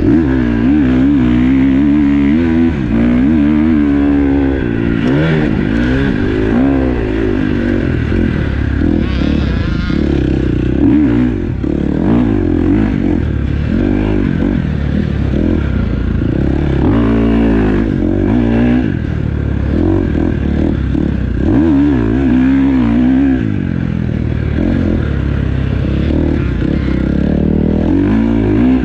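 Motocross dirt bike's engine revving up and dropping back again and again as the rider throttles on and off through the corners and gears, with rattling from the bike over the rough ground.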